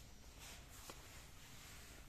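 Near silence: faint room tone with soft rustling and a small click just before a second in.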